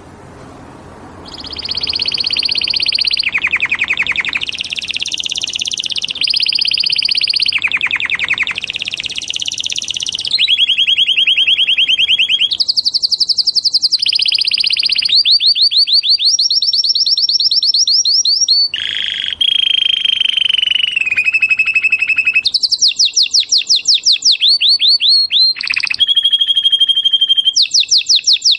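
Canary singing a long, loud song of fast trills, each a rapid run of repeated notes, switching to a new trill every second or two. It starts about a second and a half in.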